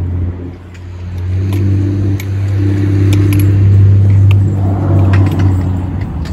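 A motor vehicle's engine running close by with a low, steady hum. It grows louder over the first few seconds and fades near the end, with a few sharp clicks over it.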